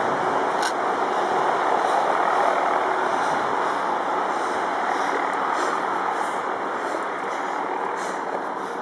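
Steady street traffic noise from passing vehicles, swelling slightly two to three seconds in and easing off toward the end.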